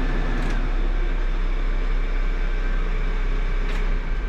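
Backhoe's diesel engine idling steadily with a low hum, the machine parked on the trailer with its brake set.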